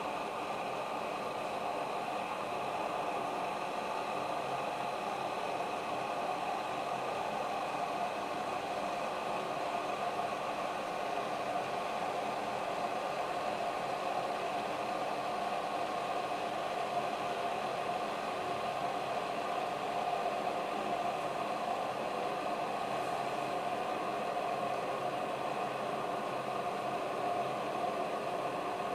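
Arzum Okka Minio Pro Turkish coffee machine running while it brews: a steady whirring hum over an even hiss.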